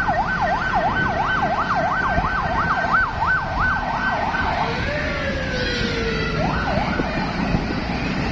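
Electronic siren in a fast yelp, sweeping up and down about three times a second, then about halfway through switching to a slower falling wail that rises again a little later, over the steady road and engine noise of a moving vehicle.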